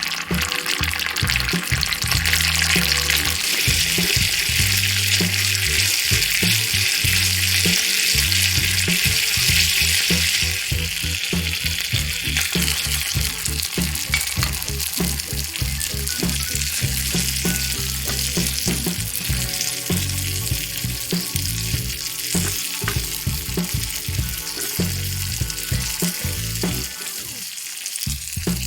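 Food sizzling as it fries in oil in a miniature pan, a steady crackling hiss that eases off after about ten seconds, with background music playing underneath.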